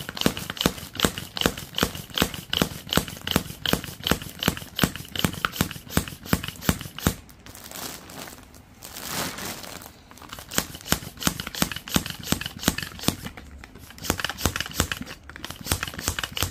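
Manual hand pump being worked up and down on a vacuum storage bag's valve to draw the air out, in a steady rhythm of about three strokes a second, with the plastic bag crinkling. The pumping stops for a moment about eight seconds in, then resumes.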